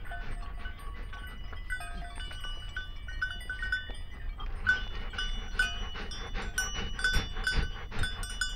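A small knife whittling a wooden pipe in short repeated strokes, each with a small squeak or click, settling to about two strokes a second in the second half.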